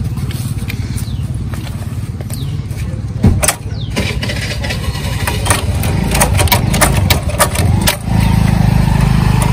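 Lever-type hand riveter setting pop rivets through a motorcycle's number plate: one loud sharp snap about three seconds in as a rivet mandrel breaks, then a run of quick metallic clicks as the handles are worked. A small engine runs steadily underneath, louder near the end.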